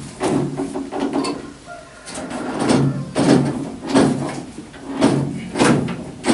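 Repeated short scraping strokes of hand work on an International 46 baler's twine-knife mechanism, coming unevenly at first and then about one every 0.6 seconds.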